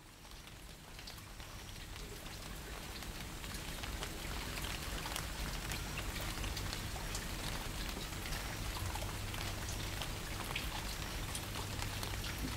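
Steady patter of falling water drops, like rain, over a low hum, fading in over the first few seconds.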